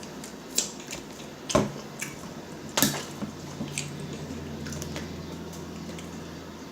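Eating sounds from fried chicken wings: a few sharp bites and wet, squishy mouth noises, over a steady low hum.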